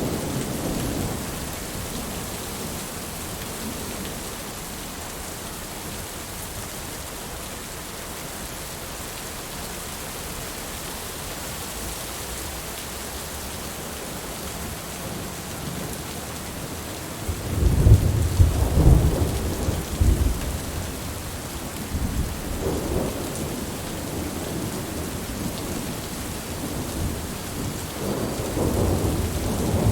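Thunderstorm: steady rain falling, with a loud roll of thunder rumbling up about halfway through and further thunder building near the end.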